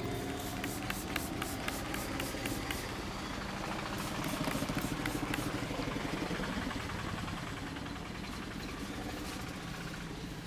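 Two runs of quick, sharp hand taps of a head massage, about four a second, over steady street traffic noise.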